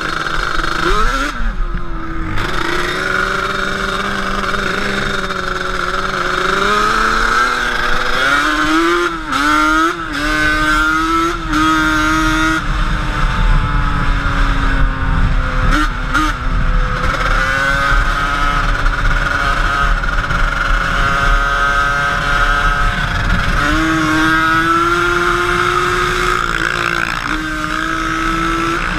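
Quad bike (ATV) engine running continuously under the rider, its pitch rising and falling as the throttle is worked, with a few quick revs about a third of the way in and a step up in engine speed near the end.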